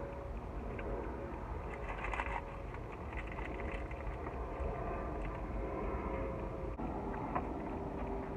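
Close-up open-mouthed chewing and smacking on a cheeseburger, with a crinkle of its paper wrapper about two seconds in, over a steady low rumble.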